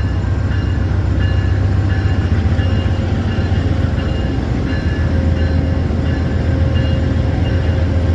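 Amtrak passenger train coaches rolling past close by: a steady, loud low rumble of wheels on rail. Over it, a grade-crossing bell dings about twice a second.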